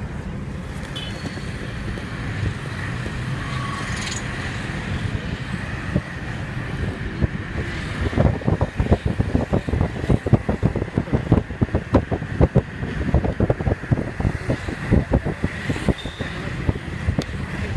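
Road and engine noise from inside a moving vehicle driving through traffic. From about eight seconds in, wind buffets the microphone in rapid, irregular gusts.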